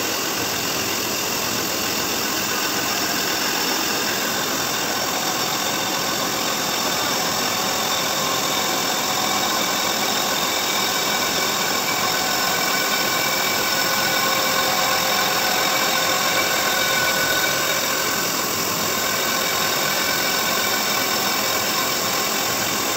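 A tool-post grinding wheel on a lathe grinds the face of a spinning flywheel. It makes a steady grinding hiss with thin high ringing tones, over the hum of the lathe and grinder motors.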